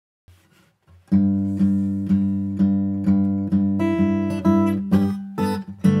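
Taylor 110 steel-string dreadnought acoustic guitar played solo. After a couple of soft touches on the strings, picked notes start about a second in, roughly two a second over a ringing bass, with higher melody notes joining past the halfway point.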